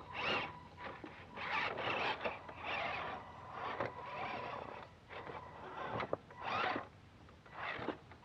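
Clodbuster RC truck's electric motors and gearboxes whirring in a series of short bursts as the throttle is blipped on a test drive, over a faint steady high tone.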